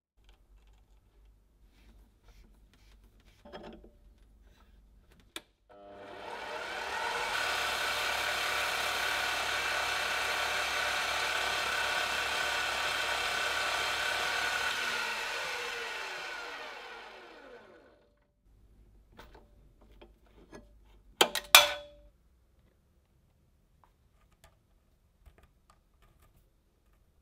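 Metal lathe motor spinning up, running steadily for about ten seconds while a small thumbscrew in its chuck is polished with an abrasive pad, then winding down to a stop with falling pitch. A few seconds later a short burst of sharp knocks, louder than the lathe.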